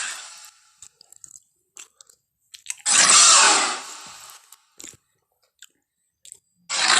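Tyrannosaurus rex sound effects: a loud, harsh, noisy burst about three seconds in that dies away over a second and a half, another starting near the end, and small clicks in the gaps.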